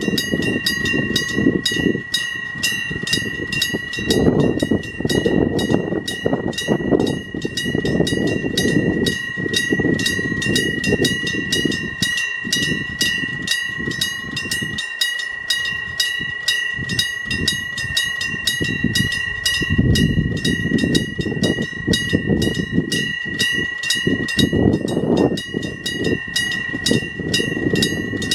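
Level-crossing warning bell ringing a quick, even ding-ding with a steady ringing tone, while a Hokuriku Railroad Ishikawa Line train rumbles over the crossing. The rumble falls away around the middle, then builds again.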